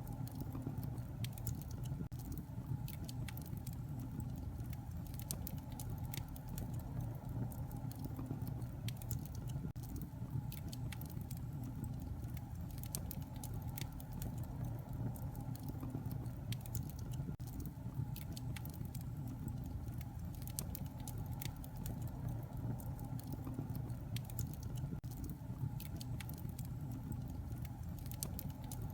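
Wood fire burning steadily in a fireplace, with a low rumble of flame under frequent small irregular crackles and pops.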